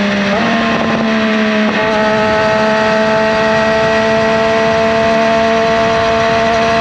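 Triumph Daytona 765 Moto2's 765 cc inline three-cylinder engine running under way. Its note steps up in pitch twice in the first two seconds, then holds nearly steady, sagging slowly.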